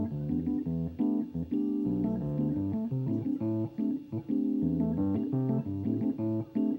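Live band playing the instrumental intro of a funk-pop song: a bass line under short, clipped, repeating chords in a steady rhythm.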